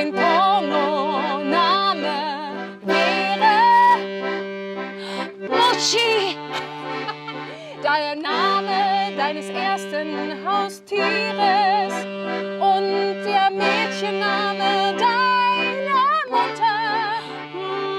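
Small red piano accordion playing sustained chords, its bass note shifting down and back every few seconds, while a woman sings over it with a wavering vibrato.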